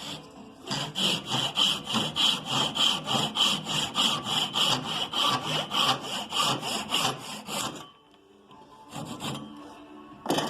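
Hand saw cutting through wood in quick, even strokes, about three and a half a second, making the shoulder cut of a half-lap joint. The sawing stops about eight seconds in, and a couple of short knocks follow near the end.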